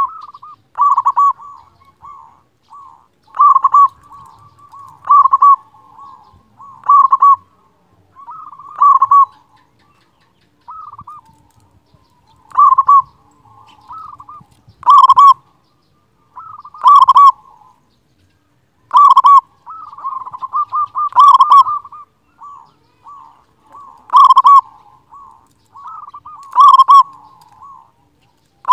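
Zebra dove (perkutut), a local-strain bird, singing its cooing song: a short phrase of quick, rolling coos about every two seconds, the phrases growing louder and sharper in the second half.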